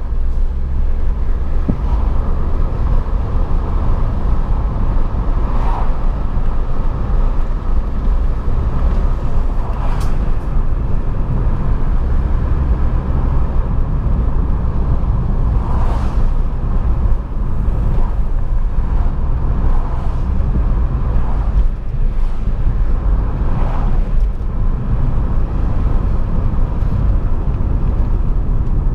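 Volkswagen Golf Mk4 on the move: a steady low engine and road rumble, with a brief swelling hiss every few seconds.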